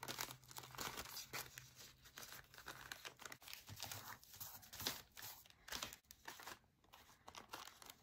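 Faint rustling and crinkling of paper being handled: a folded strip of old book page is pressed over the edge of a coffee filter envelope and smoothed down by hand.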